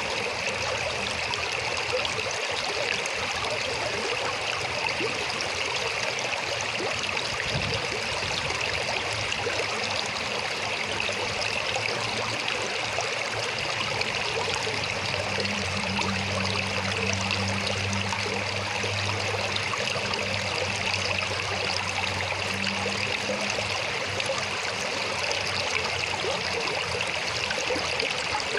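River water flowing, a steady rushing that does not change. A faint low hum joins it for several seconds around the middle.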